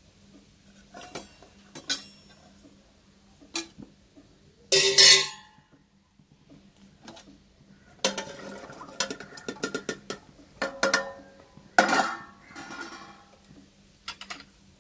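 Steel kitchen vessels clinking and knocking, with one loud ringing metal clatter about five seconds in. Later, a run of knocks and rattles as vegetables tipped from a steel plate drop into a pressure cooker pot, over a faint steady hum.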